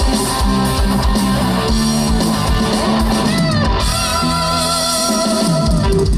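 Live band playing amplified music, led by electric guitar over bass and drums. About halfway in, a held, wavering melody line comes in above the band.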